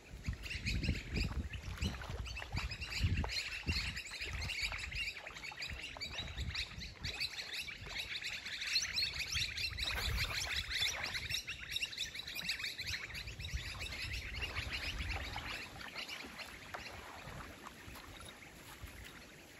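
Birds chirping and twittering in a busy chorus, with wind buffeting the microphone in low gusts that die down after the first half.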